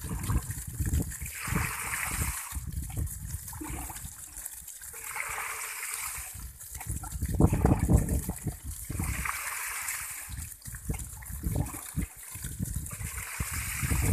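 Water splashing and sloshing in a shallow tank as a hand net and buckets are dipped and scooped through it, in repeated bouts about every four seconds.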